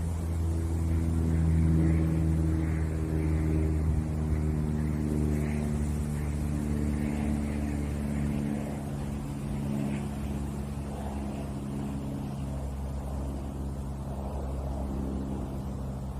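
Engine drone from a passing motor, a steady low hum with an even ladder of pitches. It grows louder for about two seconds and then slowly fades.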